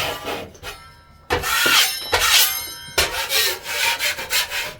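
Scraping strokes across a freshly hung plasterboard ceiling sheet, checking that the screw heads sit below the paper surface. One loud, longer scrape comes about a second in, followed by quick repeated rubbing strokes.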